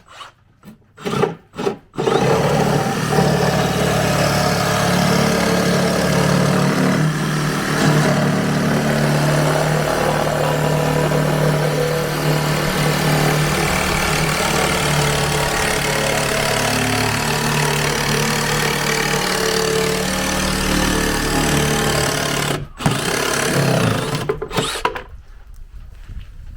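Makita JR187DZ 18V cordless reciprocating saw cutting 12 mm plywood: a few short starts, then one long continuous cut of about twenty seconds. It stops briefly near the end, runs again for about two seconds, then stops.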